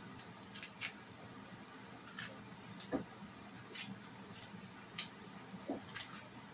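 Green plantain's peel being pulled off by hand: faint, scattered crackles and ticks of the tough skin tearing away from the fruit, the sharpest about three seconds in.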